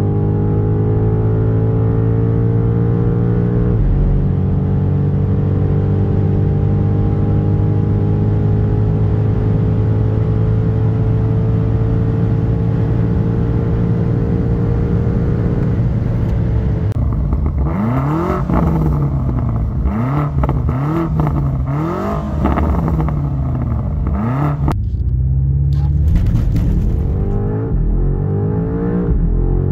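BMW M5 G90's twin-turbo V8 pulling hard at full throttle, heard from inside the cabin, with an upshift about four seconds in and the engine note climbing slowly at very high speed. Past the halfway point the note rises and falls sharply several times, and near the end a fresh hard acceleration begins.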